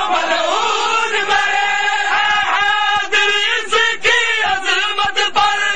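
A packed crowd of men chanting a noha lament loudly in unison. Under it run irregular dull thumps of chest-beating (matam).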